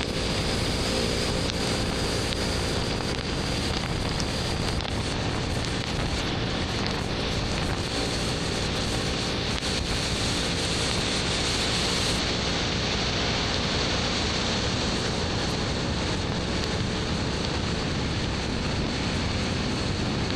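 Steady wind rushing over the camera microphone on a moving BMW R1250GS Adventure motorcycle, with the bike's boxer-twin engine and Akrapovic slip-on exhaust running at a steady cruise underneath. The engine's hum shows most in the first few seconds.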